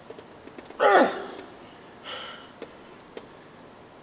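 A person's loud, short exertion groan about a second in, falling in pitch, then a sharp breath out about a second later.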